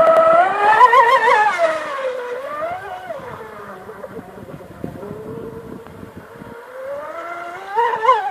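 Turnigy SK3 1900kv brushless electric motor of an RC speedboat whining as it drives a 42 mm propeller, its pitch rising and falling with throttle and speed. The whine is loudest and highest about a second in, fades and drops in the middle, and rises again near the end.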